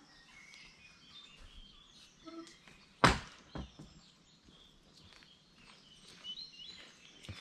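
Birds singing in a hedge-lined woodland, a scatter of chirps, with a single sharp knock about three seconds in and a softer one just after.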